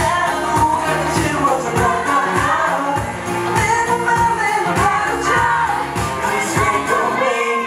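K-pop dance track with a sung vocal over a steady drum beat. The drums and bass stop just before the end as the song finishes.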